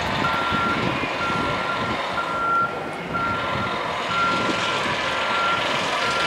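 A vehicle's reversing alarm beeping steadily, about one beep a second, over continuous outdoor background noise.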